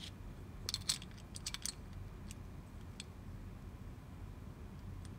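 Faint clicks and taps of a watch band being fitted into a small plastic band-resizing tool: a cluster of quick clicks about a second in, then a couple of single ticks.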